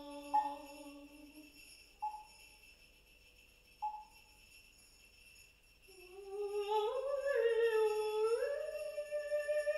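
Sparse contemporary chamber music. A held low note ends early, followed by three short ringing notes about two seconds apart that die away quickly. From about six seconds in, a mezzo-soprano hums softly on 'n', her pitch sliding up and down.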